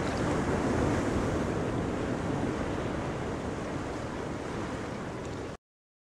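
Steady rushing water noise of underwater ambience, without distinct tones, that cuts off suddenly shortly before the end.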